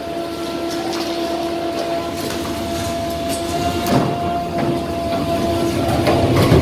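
Demolition excavator's engine and hydraulics running with a steady whine, while a Demarec hydraulic crusher jaw crunches reinforced concrete, with sharp cracks now and then.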